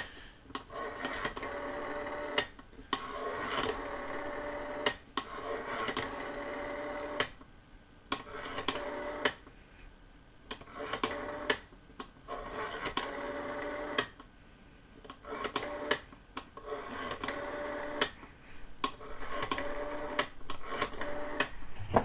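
Western Electric rotary telephone dial being wound round and whirring back, digit after digit, about ten times with short pauses between. This is pulse dialing a phone number: each return sends the pulse train that the Bluetooth gateway reads as a digit.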